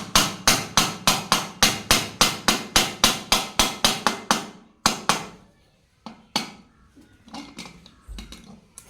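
A hammer beating on metal in a fast, even rhythm of about three to four blows a second for the first four seconds or so. Two more blows follow, then a few lighter, scattered knocks.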